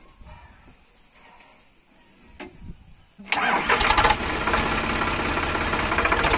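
Sonalika DI 42 RX tractor's 42 HP diesel engine starting up abruptly about three seconds in, loudest for the first second, then settling into a steady idle. Before it starts there is a single sharp click.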